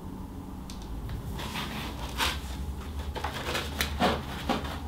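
Fatshark Dominator HD FPV goggles being handled and pressed to the face: scattered small plastic clicks and rustles over a steady low hum.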